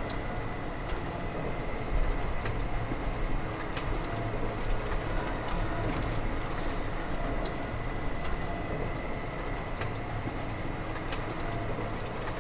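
Steady hum of woodworking factory machinery, a constant low rumble with a thin high whine and a few faint clicks.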